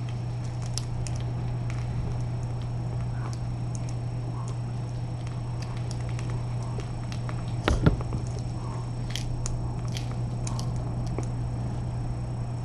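Faint, irregular clicking of a kitten crunching dry kibble from a plate over a steady low hum, with one louder clatter about two-thirds of the way through.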